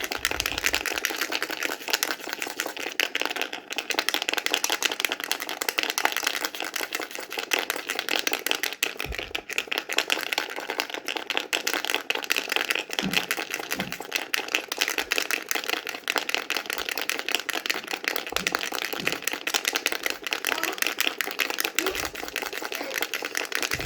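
Baby rattle shaken continuously, a dense, fast rattling of many small clicks with a few faint low thumps of handling.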